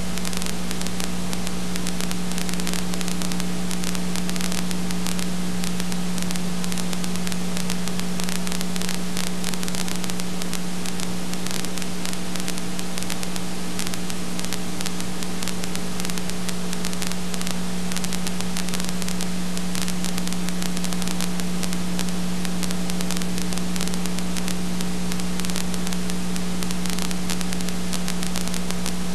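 Steady hiss with an unbroken electrical hum and nothing else: the empty audio track of an old silent home-movie film transferred to video.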